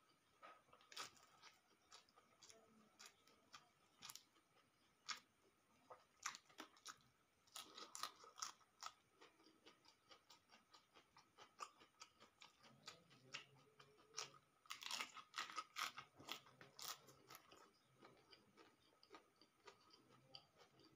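Quiet close-up chewing of rice, omelette and raw vegetables, with crisp crunches and wet mouth clicks. A dense run of crunches comes about fifteen seconds in.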